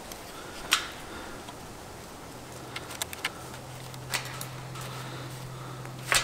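Hands tying the string of an electric netting fence around a wooden post: light rustling and several sharp, separate clicks. A steady low hum comes in a little over two seconds in.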